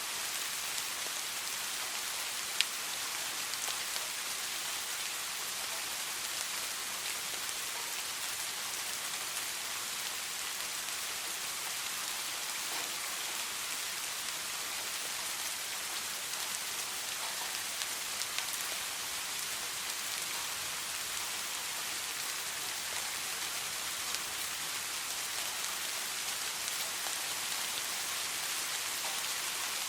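Steady rain: an even, dense hiss with a few sharper drop ticks, one louder about two and a half seconds in. No thunder is heard.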